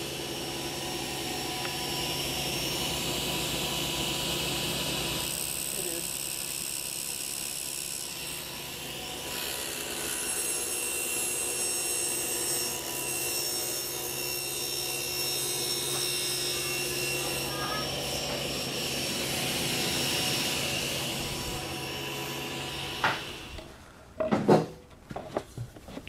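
Table saw running with its blade tilted, ripping a long miter along the edge of a veneered plywood panel, a steady machine sound that shifts a little as the cut goes on. Near the end come a few sharp knocks.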